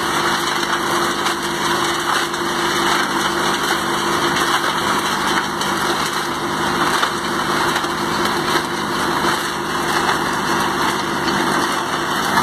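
Small engine of a self-loading mobile concrete mixer running steadily, with a constant hum under it.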